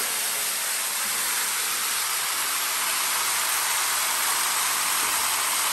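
Seasoned turkey necks sizzling steadily in a hot aluminium pot, just dropped in to brown and sweat in the oil.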